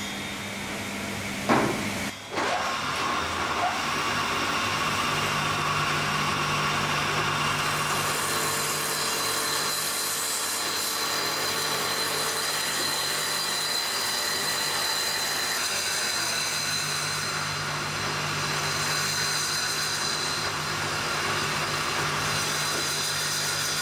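Automatic wood-turning copy lathe running, its cutters working square wooden blanks into chair legs with a steady mix of motor hum and cutting noise. Two sharp knocks come about one and a half to two seconds in, and a steady low hum joins about five seconds in.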